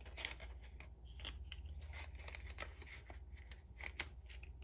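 Faint rustling and light clicks of paper cash envelopes and banknotes being handled.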